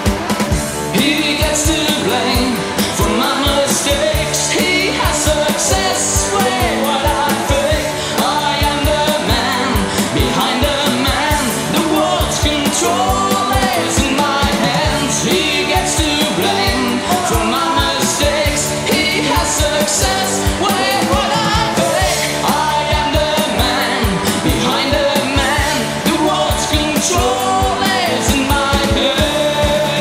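Rock band playing a song, with a steady drum beat under the melody.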